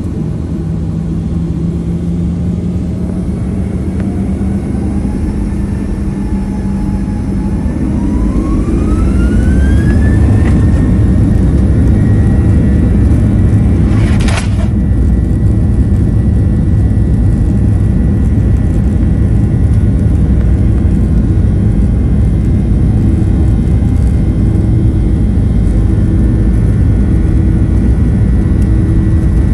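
Boeing 737-800's CFM56-7B jet engines spooling up to takeoff thrust, heard from the cabin: the fan whine rises in pitch over several seconds, then holds steady over a loud low rumble as the airliner accelerates down the runway. A single sharp click about halfway through.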